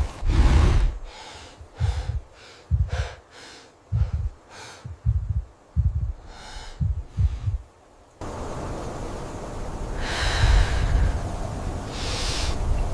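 Heavy, breathy gasps and snorts over a series of low thuds, one about every three-quarters of a second. About eight seconds in the sound cuts to a steadier rumbling bed with two loud, drawn-out breaths.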